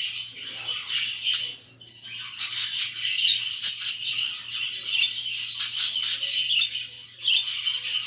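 Several caged budgerigars chattering and warbling together, with sharp chirps and squawks over a steady low hum; the chatter eases off briefly about two seconds in.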